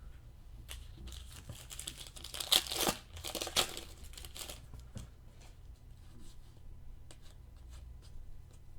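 A trading-card pack's foil wrapper being torn open and crinkled, loudest in a burst about two and a half to three and a half seconds in, followed by a few light clicks and rustles as the cards are handled.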